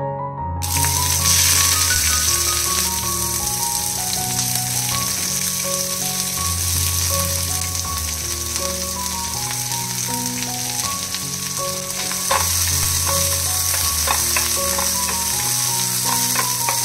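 Sliced onion dropped into hot oil with cumin and mustard seeds in a frying pan, starting a loud sizzle about half a second in that carries on as the onion fries. Near the end a few sharp knocks and scrapes come from a wooden spatula stirring the pan.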